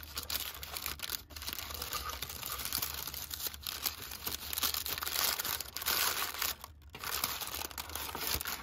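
White paper wrapping around a takeaway pie being pulled open and crumpled by hand: continuous crinkling and crackling paper, with short pauses about a second in and near seven seconds.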